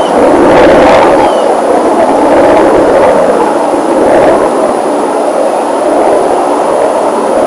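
Aircraft flying over, a loud steady engine noise with a faint low hum running through it.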